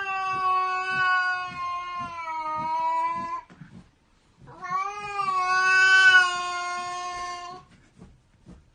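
A cat yowling: two long, drawn-out calls, each held for three to four seconds at a fairly steady pitch that sags slightly toward its end, with a short pause between them.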